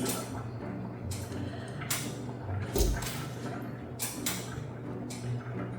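Scattered kitchen handling sounds: a few soft knocks and clatters of things being moved about on the counter, over a steady low hum.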